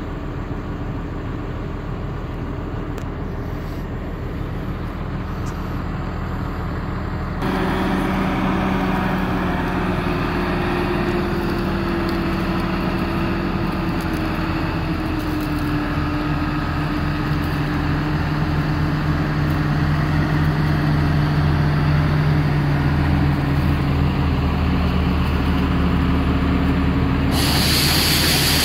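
Diesel engine of a John Deere 4420 combine running, with a low steady drone. About seven seconds in it suddenly gets louder and a steady hum comes in whose pitch slowly sags, as if under load while unloading soybeans; near the end a hissing rush joins it.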